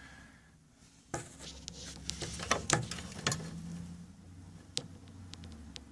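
Scattered sharp metallic clicks and knocks of parts and tools being handled inside a microwave oven being taken apart, starting about a second in, over a low steady hum.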